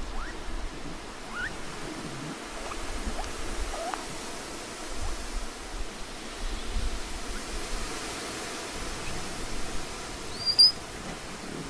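Patagonian mara calling: a few faint, short rising squeaks over a steady outdoor hiss, then one short, sharp high squeak about ten and a half seconds in, the loudest sound here.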